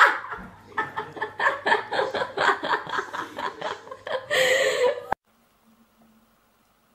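A person laughing in a quick run of short bursts, ending in one louder burst, then cut off abruptly to near silence about five seconds in.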